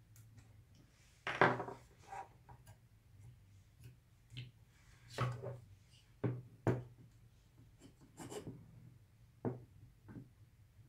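Handling noise of a Gigabyte R9 390 graphics card being turned over in the hands on a wooden desk: scattered knocks, clicks and rubs of the card against hands and desktop, with a low steady hum underneath.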